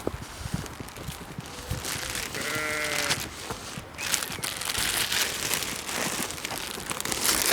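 A sheep bleats once, a short wavering call about two and a half seconds in, over rustling and handling noise.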